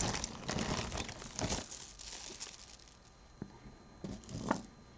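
Plastic bag crinkling and rustling as hands rummage through a bag of costume jewelry, dying down after about two seconds, then a few light clicks of pieces being handled.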